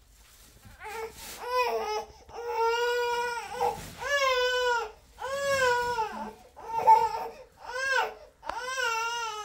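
Infant crying: a run of wails, each about a second long and rising and falling in pitch, starting about a second in.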